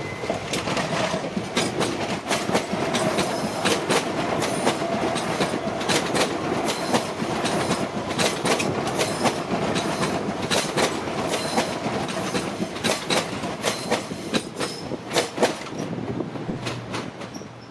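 Alstom X'Trapolis Mega electric multiple unit passing close by, a steady rumble with many rapid clacks of its wheels over the rail joints, dying away near the end as the last car goes by.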